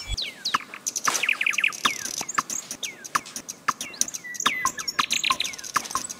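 Birds chirping: many short calls sweeping downward in pitch, a few every second, with a quick rattling trill about a second in.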